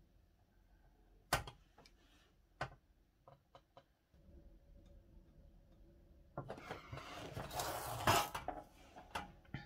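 Workbench handling sounds: two sharp knocks and a few faint ticks as pens and tools are picked up and set down, then about two seconds of scraping and rustling with one clank as a painted metal clock dial is slid and turned on a cutting mat.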